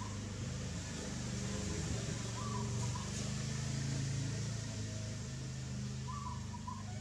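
A steady low mechanical hum, like an engine running, with a few brief high chirps over it.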